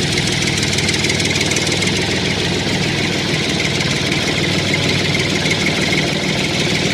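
Small motor of a home-built model tractor running steadily with a fast, even rattle.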